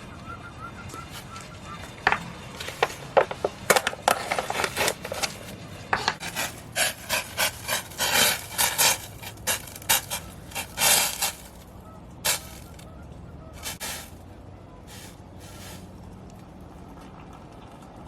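Camping gear being handled and packed: quick, irregular rustling, scraping and clattering, busiest from about two to eleven seconds in, then a few scattered scrapes.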